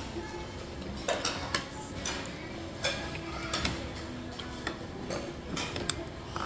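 Cutlery clinking and tapping against plates and bowls during a meal: a scattering of short, sharp clicks, about ten of them at irregular intervals, over the steady hum of the restaurant.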